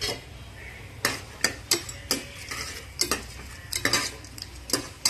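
A metal slotted ladle stirs whole spices and cashews frying in ghee and oil in an aluminium pressure cooker, clinking and scraping against the pot about a dozen times at an uneven pace. A faint sizzle runs underneath. This is the tempering stage, where the spices are roasted until fragrant.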